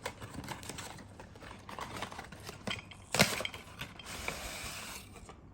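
Handling of a cardboard product box: light clicks, taps and scrapes, with a sharper knock about three seconds in, then a steady sliding rub for about a second and a half.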